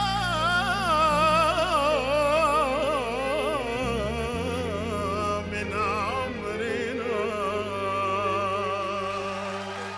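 Male singer holding long, wavering ornamented notes through a microphone, over a sustained low accompaniment that changes note about four seconds in.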